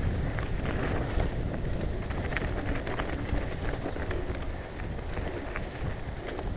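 Mountain bike rolling down a loose gravel track: tyres crunching over stones and the bike rattling with many small knocks, over a low rumble of wind on the microphone.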